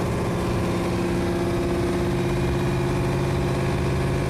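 Boat engine idling steadily, an even hum at an unchanging pitch, heard inside the boat's cabin.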